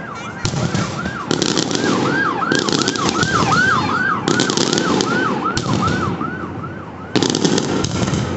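Aerial fireworks going off in a string of loud crackling volleys. Under them an emergency vehicle's siren yelps, rising and falling two or three times a second, and dies away near the end as a last loud volley breaks.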